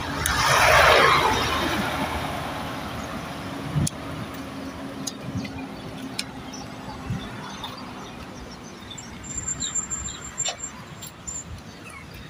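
Street traffic: a vehicle rushes past close by about a second in, its noise falling in pitch as it goes, then a steady engine hum and distant traffic. A thin high whine sounds for about two seconds near the end.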